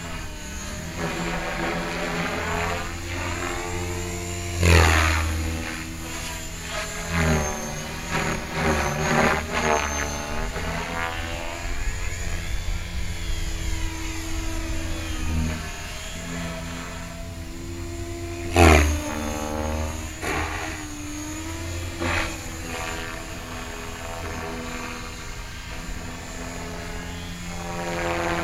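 Align T-Rex 550 electric RC helicopter in 3D flight: the rotor whirs steadily, its pitch sliding up and down as the collective and speed change. Two loud swells of blade noise come about five seconds in and again near nineteen seconds.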